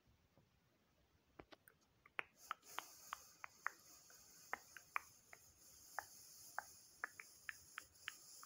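A run of irregular sharp clicks, about two or three a second, starting about a second and a half in, over a faint steady high hiss that comes in a little later.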